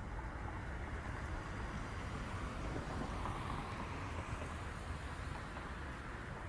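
Steady low background rumble with a soft hiss, swelling slightly about halfway through; no distinct sound from the grazing deer stands out.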